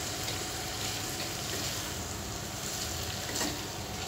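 Oil sizzling in a frying pan as a spatula stirs raw ash gourd (chal kumra) strips into scrambled egg and spices, with a brief scrape of the spatula about three and a half seconds in.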